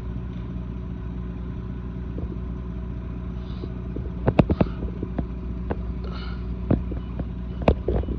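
An engine running steadily at idle, with several sharp knocks and clanks: a cluster about four seconds in, then single ones later on.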